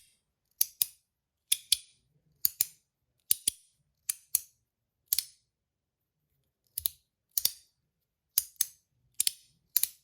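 Titanium capsule slider fidget snapping back and forth between its detents, giving sharp clicks. The clicks come mostly in pairs, about one pair a second, with a pause of about a second and a half midway.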